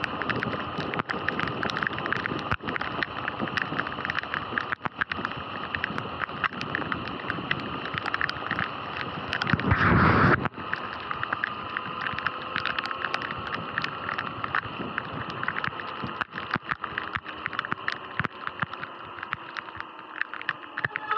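Riding noise from a Sur-Ron electric dirt bike on a rain-soaked road: a steady rush of wind and tyre spray, dotted with many sharp raindrop ticks hitting the camera. About ten seconds in, a loud rubbing lasts about a second as the camera is covered.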